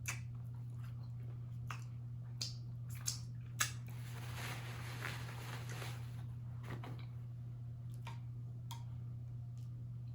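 A person chewing and biting food close to the microphone: scattered wet mouth clicks, with a denser stretch of chewing about four to six seconds in, over a steady low electrical hum.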